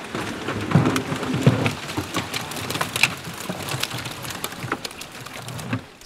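Live olive flounder slapping and splashing water as crates of them are handled and tipped into a live-fish transport tank: a dense run of irregular splashes, slaps and spatters.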